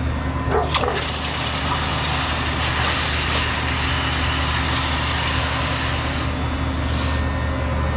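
Homemade drum forge running: a steady low hum under a broad rushing hiss, with a couple of light knocks of steel about half a second in.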